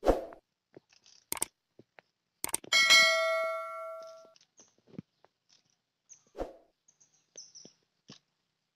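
Subscribe-button animation sound effect: a few sharp clicks, then a bright notification-bell ding about three seconds in that rings out and fades over about a second and a half. Scattered soft clicks and a thump follow later on.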